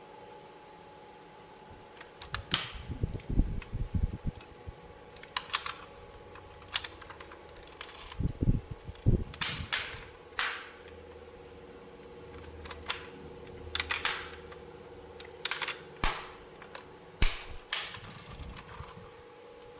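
Hard plastic toy pieces being handled: irregular sharp clicks and taps, with short clusters of duller knocks as parts are set down, over a faint steady hum.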